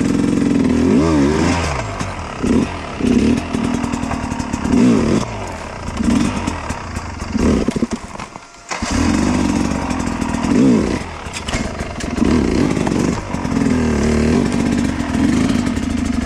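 Dirt bike engine revving in short repeated bursts while riding off-road, its pitch rising and falling every second or two. It drops away briefly about eight and a half seconds in, then picks up again.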